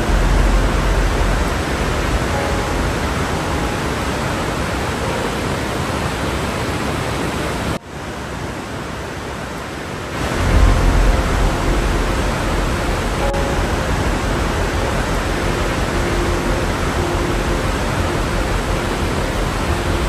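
Steady rush of falling water from a large waterfall, dense and full down into the low end. About eight seconds in, it drops and thins for roughly two seconds before coming back at full strength.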